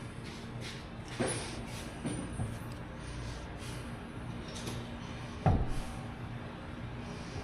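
A few knocks and clunks of hard parts being handled, the loudest about five and a half seconds in, over a steady low hum.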